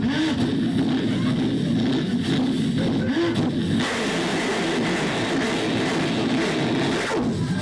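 Mouth-made sound effects imitating a train: a dense, rhythmic rumble with pitch that swoops up and down. About four seconds in a loud hissing rush comes in over it and cuts off shortly before the end.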